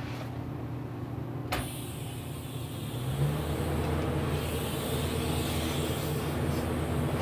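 Welding machine humming steadily, with one sharp click about a second and a half in. From about three seconds the hum grows louder and more hiss comes in.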